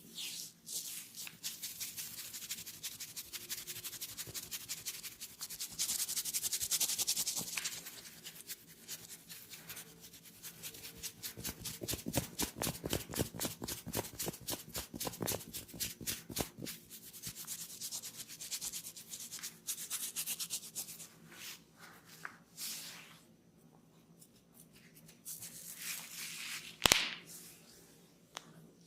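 Hands rubbing and briskly stroking the head and hair close to the microphone, in runs of fast, even strokes. One much louder sharp snap comes near the end.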